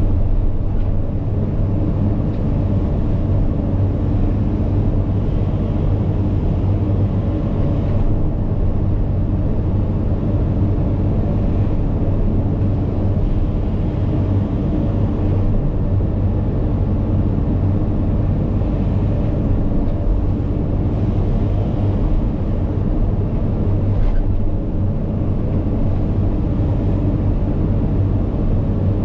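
Cat 395 hydraulic excavator's C18 diesel engine running steadily under load while bench loading, a continuous low hum with little change in pitch.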